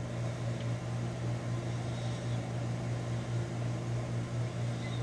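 Steady low hum with a faint, even hiss, unchanging throughout.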